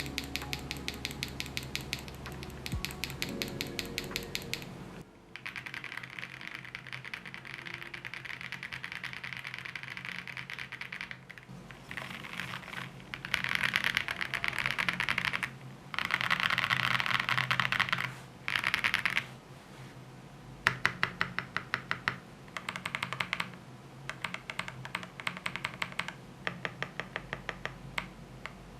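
Typing on a Chaosera Cupid65 gasket-mount mechanical keyboard with Cupid switches and XMI Cat keycaps. Fast continuous keystrokes come with several louder, denser bursts about halfway through, then slower keystrokes in small separate groups near the end.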